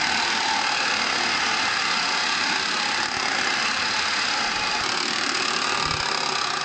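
Radio-controlled monster truck's motors and gears whirring steadily as it drives and pops wheelies on a concrete floor.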